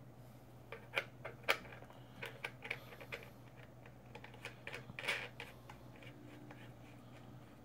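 Irregular small clicks and taps of hands handling vape hardware on a table: a box mod and the Wotofo Serpent Mini rebuildable tank's build deck being fitted together, with a few sharper knocks about a second in and again around five seconds.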